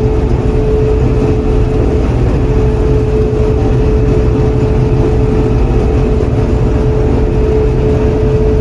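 John Deere 4400 combine running steadily: a constant low engine rumble with a steady whine above it.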